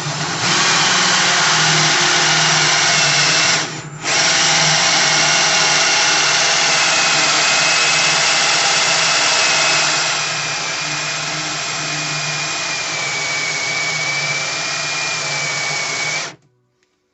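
Power drill spinning a hole saw to bore a deadbolt hole through a door. It runs steadily with a faint whine, pauses briefly about four seconds in, runs a little quieter after about ten seconds, and stops shortly before the end.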